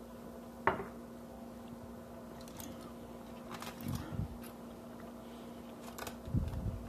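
A drinking glass set down on a countertop with one sharp knock about a second in. Softer clicks and low thumps of eating and handling the food follow, over a steady low hum.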